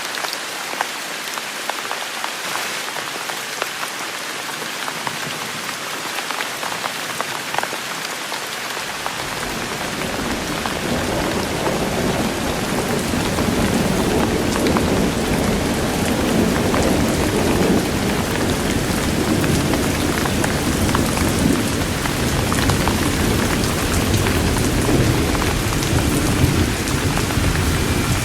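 Steady rain falling on surfaces, with a long low rumble of thunder building in about nine seconds in and rolling on through the rest.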